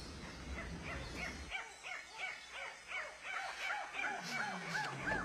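Animal calls: a run of short, arching yelps repeating about three times a second, starting about a second in. A low engine hum cuts off about one and a half seconds in.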